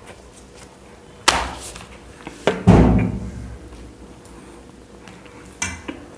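Three sudden thumps and knocks from hurried chapati eating and handling, the loudest and heaviest about two and a half seconds in.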